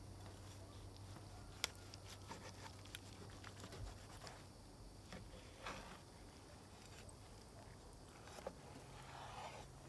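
Faint crackle and crunch of a large cleaver-style chef's knife slicing through the crisp, grilled caul-fat crust of a stuffed steak, with scattered sharp clicks. The sharpest click comes about one and a half seconds in.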